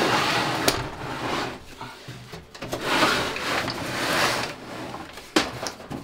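Scraping and rubbing of parts being worked loose inside a metal server chassis, in two long stretches, with a sharp click about two-thirds of a second in and another near the end.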